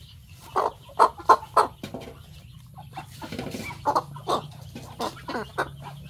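Chickens clucking in a series of short calls, several in quick succession about a second in and more from about four seconds in.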